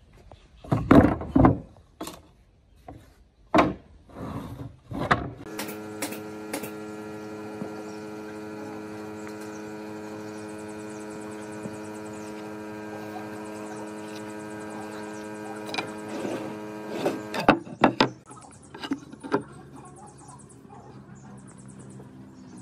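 Pine boards set down and handled on a wooden worktable with a few loud knocks, followed by a steady electrical hum of several even tones for about twelve seconds that cuts off suddenly. A few more knocks of wood on the table come after it, over faint high, rapidly pulsing chirps.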